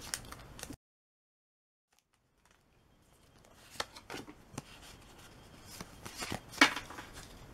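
Pokémon trading cards being handled and slid against each other: faint rustling of card stock with a few sharp clicks. The audio drops out to dead silence for about two seconds near the start.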